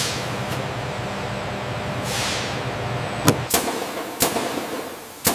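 A steady workshop hum with a falling hiss, then from about three seconds in, four sharp metallic strikes at uneven intervals.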